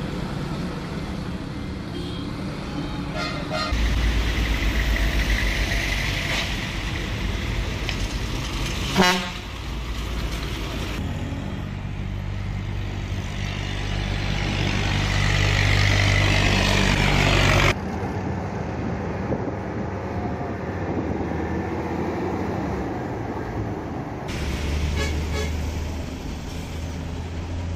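Hino bus engine running in street traffic, with horn toots. The engine noise swells and cuts off suddenly about two-thirds through, and there is one sharp knock about nine seconds in, the loudest moment.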